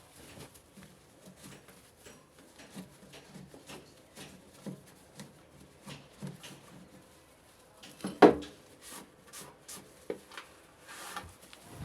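Parts of a washing machine being handled during a repair: rubbing and scattered small clicks and knocks, with one much louder knock about eight seconds in.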